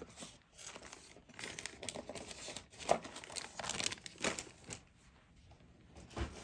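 Hands rummaging for earring backs: irregular small clicks and rustling that die away about five seconds in.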